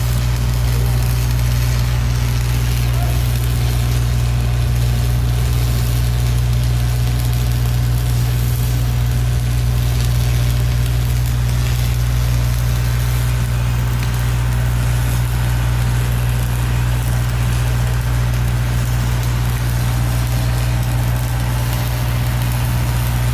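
Welding machine humming steadily and loudly, with a fine crackling hiss over it, typical of an electric arc welding.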